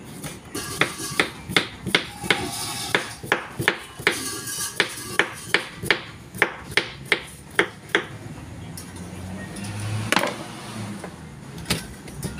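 Rhythmic knocking on a kitchen worktable, about two and a half sharp strokes a second, stopping about eight seconds in; one louder knock follows about two seconds later.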